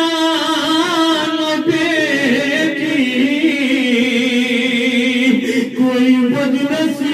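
A man chanting an Urdu noha, a mourning lament, into a microphone, bending his voice through long drawn-out notes.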